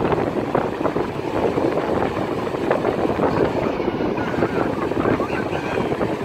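Wind buffeting a handheld phone's microphone, over the steady wash of heavy surf breaking on an open beach.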